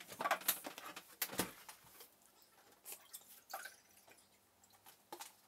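Scattered short, wet mouth sounds and breaths, such as lip smacks, sucking and blowing, from a man whose mouth is burning from a ghost pepper. The loudest come in the first second and a half, with a few quieter ones after.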